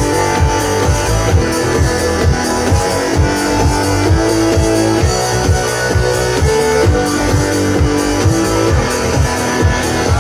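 Instrumental music: guitar over a steady drum beat, without singing.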